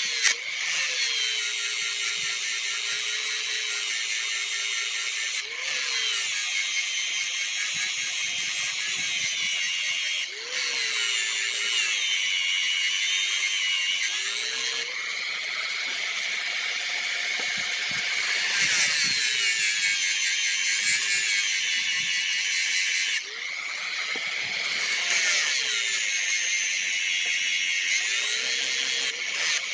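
Handheld electric power tool motor running continuously, its pitch sagging and recovering every few seconds as it is pressed into the work and eased off.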